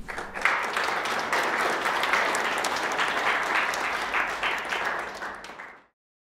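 Audience applauding, a dense patter of many hands clapping. It fades away quickly about a second before the end and gives way to silence.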